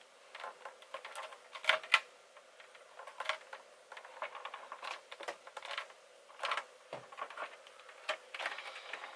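Irregular plastic clicks and taps from handling the parts of a car headlight as it is taken apart, with a couple of sharper clacks a little under two seconds in.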